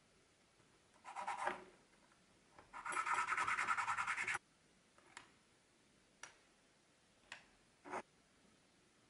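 A small flat metal hand tool scraping rapidly over the ends of a bundle of thin wooden strips: a short pass about a second in, then a longer run of quick strokes lasting about a second and a half. After it, four light taps of wooden strips set down on a cutting mat.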